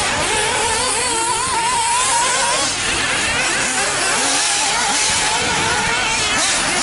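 Nitro RC buggies' small two-stroke glow engines racing, their high whine wavering up and down with the throttle.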